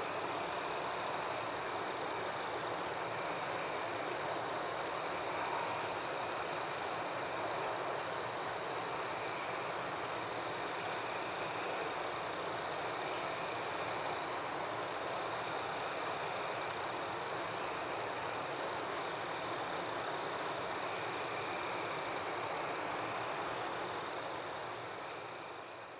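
Night chorus of frogs and insects: a steady high-pitched insect trill with rapid high chirps repeating over it, starting to fade near the end.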